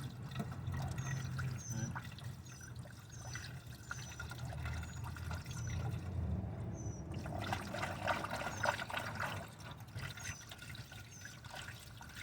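Coolant pouring and trickling steadily during a radiator coolant change, with faint short high chirps repeating about once a second.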